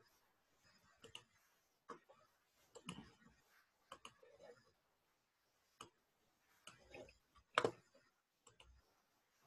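Faint, irregular clicks and light knocks from computer mouse and desk handling, roughly one a second, with the loudest knock near the end.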